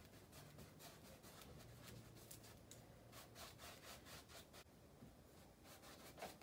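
Faint, repeated rubbing of a flat paintbrush stroking back and forth across a stretched canvas, a rapid run of short scrubbing strokes.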